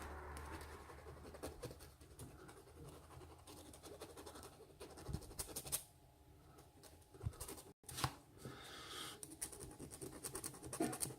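Soldered brass wafer pin being sanded gently by hand: faint, irregular scratching strokes, pausing briefly around six to seven seconds in.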